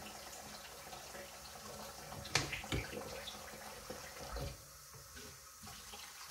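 Kitchen tap running faintly into a sink, with two sharp clinks about two and a half seconds in and a dull thump about four and a half seconds in; the water sound drops away soon after the thump.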